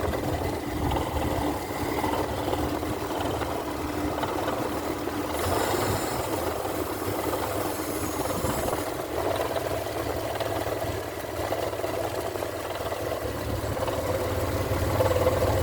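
Mitsubishi Pajero Sport V6 engine running steadily, carrying the strange noise its owner posted it for. A hiss joins for about three seconds in the middle.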